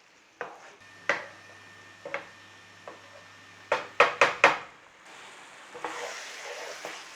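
Chicken and onion paste being stirred in a hot pan: a spoon knocks against the pan several times, loudest in a quick run of four knocks around the middle. The food sizzles steadily near the end.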